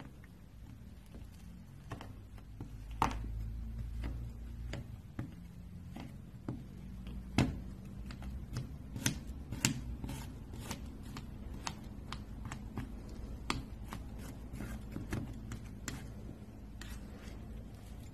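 Metal palette knife cutting through thick paint and tapping and scraping on the board beneath: a string of irregular sharp clicks and soft scrapes, busiest in the middle stretch, over a low steady hum.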